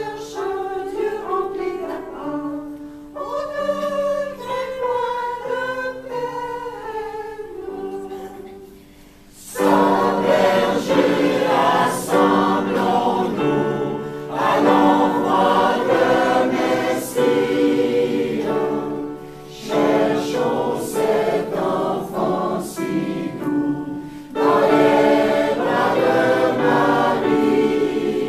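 A mixed choir of men and women singing. It starts quieter and thinner, then swells into a much louder, fuller passage about ten seconds in, with brief breaths between phrases.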